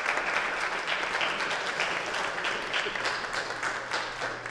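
Congregation applauding, the clapping thinning out and dying down near the end.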